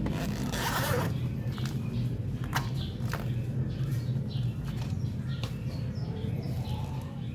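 Metal clicks and a short rasping scrape about half a second in, from tools working at the clip of a motorcycle drive chain's master link to get it off.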